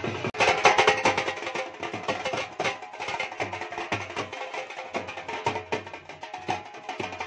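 Procession drummers beating a large drum and a smaller drum with sticks in a dense, driving rhythm of sharp strokes.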